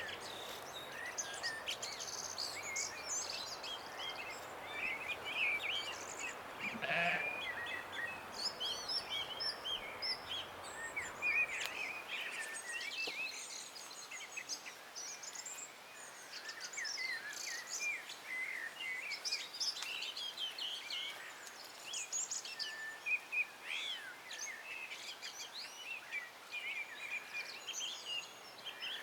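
Mixed birdsong, many small birds chirping and trilling at once, with a single brief sheep bleat about seven seconds in. A soft background hiss fades out about twelve seconds in.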